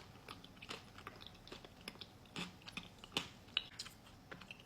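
Close-miked, quiet chewing of a mouthful of thick Greek yogurt with granola and honeycomb: wet mouth clicks and small crunches at irregular moments, a few of them louder in the second half.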